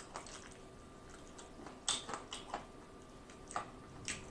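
Close-miked chewing of Popeyes fried chicken, its crispy breading crunching in a string of short, sharp crunches, the loudest about two seconds in.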